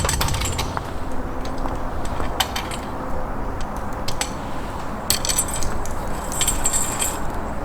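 Metal items jingling and clinking in short bursts, a few times, over a steady rushing background noise.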